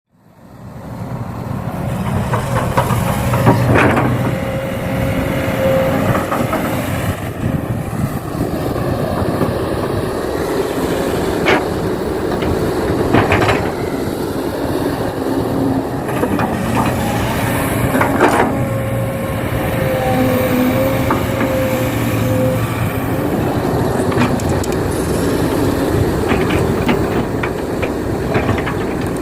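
Radio-controlled model Kobelco excavator at work: a steady mechanical running noise with a thin motor whine that comes and goes, and a few sharp knocks.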